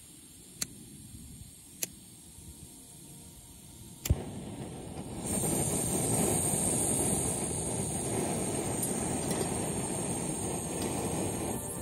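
A few sharp clicks, the loudest about four seconds in, then a steady hiss from about five seconds in: a Coleman backpacking stove on a screw-on gas canister, its burner running as the gas is turned on and lit with a lighter.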